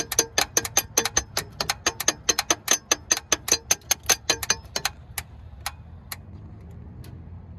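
2000 Honda Odyssey's starter solenoid clicking rapidly, about five clicks a second, while the key is held in the start position and the engine does not crank. Nearly five seconds in the clicking slows to a few scattered clicks and stops. A failed starter, which the mechanic takes for a solenoid not making contact with the motor.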